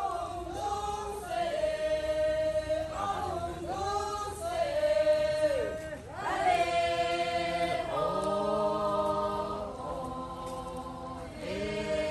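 A group of voices singing a chant-like song in long held notes that slide up and down between pitches.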